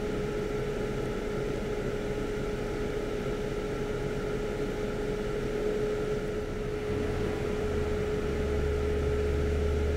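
Steady mechanical hum of bench equipment, with one constant tone, and a low rumble joining about seven seconds in.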